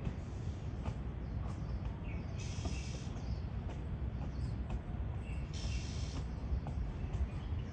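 Steady low background rumble, with two short high-pitched bursts about two and a half seconds in and again near six seconds, and a few faint clicks.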